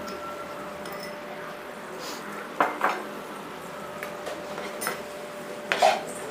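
Metal utensil stirring sauce in a cooking pan as cornflour slurry thickens it, with scraping and several sharp clinks against the pan, the loudest about two and a half seconds in and near the end, over a steady faint hum.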